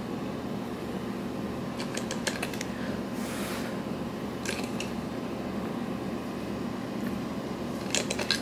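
A steady low mechanical hum, with a few clusters of light clicks about two, four and a half and eight seconds in and a short hiss around three seconds.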